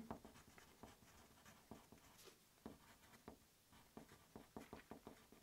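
Faint pencil writing on paper: a string of soft, short scratching strokes as words are written, coming thicker in the second half.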